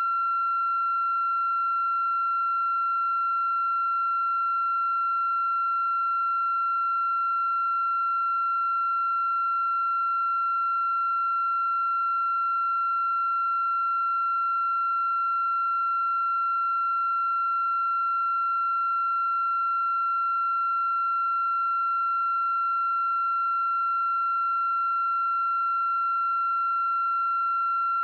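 A continuous, unchanging high-pitched electronic tone with fainter overtones above it.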